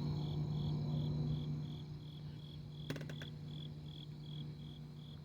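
Cricket chirping in an even rhythm, about two to three high chirps a second, over a steady low hum. A few faint clicks about three seconds in.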